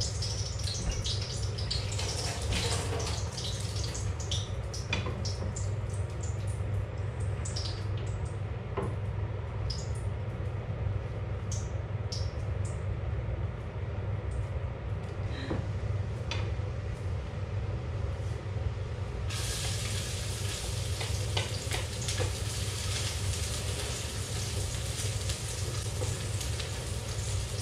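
Hot olive oil in a wok starts sizzling suddenly about two-thirds of the way in as food goes into the pan, and keeps frying steadily. Before that, small clicks and rustles of food being handled over a steady low hum.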